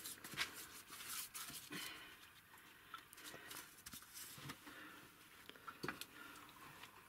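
Faint scraping and brushing against a wall as it is daubed by hand, with a few light taps and knocks scattered through.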